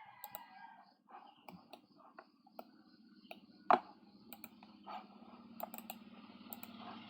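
Scattered clicks of a computer mouse and keyboard, one louder click about three and a half seconds in. A faint low steady hum comes in about halfway through.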